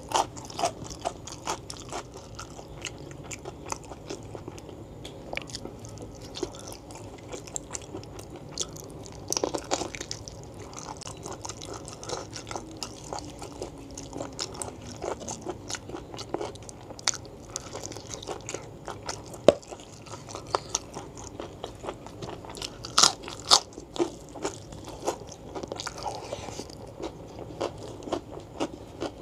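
Close-up chewing and mouth sounds of a person eating spicy beef-foot tendon and fat with rice by hand: many short, sharp, wet clicks, with a few louder bites about ten seconds in and again near the end.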